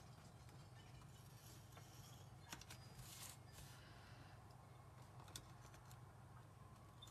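Faint scratching of a knife scoring along the fold lines of thin card, in a few short strokes, the longest about three seconds in, over a low steady hum.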